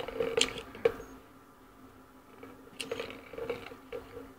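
Empty plastic tub handled by a toddler on a concrete floor: a few light knocks and scrapes as it is tipped and set down.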